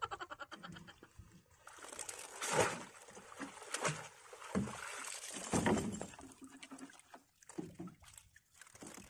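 Seawater splashing and streaming off a net crab trap as it is hauled out of the sea and onto a small boat, with several louder splashes in the middle.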